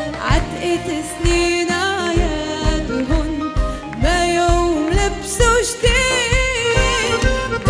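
A woman singing a Christmas song into a microphone, her voice wavering on held notes, over a band with accordion and a steady kick-drum beat about twice a second.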